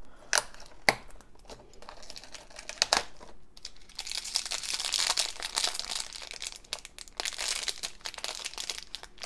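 A few sharp clicks and crackles as the cardboard toy pack is pulled open, then a purple foil blind bag crinkling steadily as it is handled and torn open.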